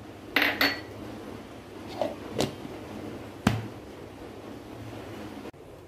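Clinks and knocks from handling a plastic blender jar as its lid is fitted, the loudest a single sharp knock about three and a half seconds in.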